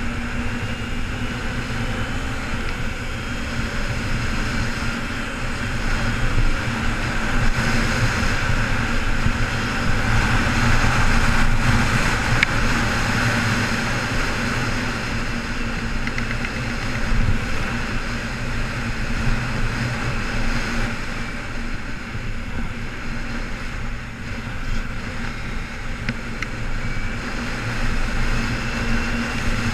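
2008 Kawasaki Ninja 250R's parallel-twin engine running as the bike rides along, with wind noise over it. It gets louder about ten to thirteen seconds in and eases off after about twenty seconds.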